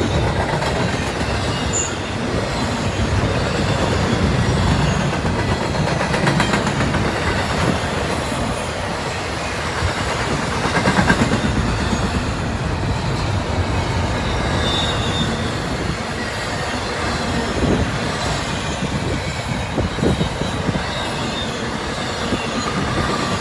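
Empty intermodal freight cars rolling past steadily, with wheels clattering over rail joints and a faint, brief wheel squeal about two-thirds of the way through.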